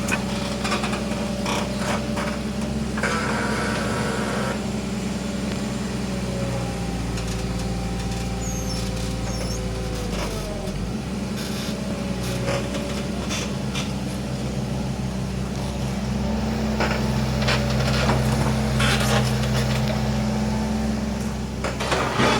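Hitachi Zaxis 120 hydraulic excavator's diesel engine running steadily under working load. Its pitch sags about ten seconds in, then picks up again and grows louder. Short knocks and scrapes from the machine at work come through at several points.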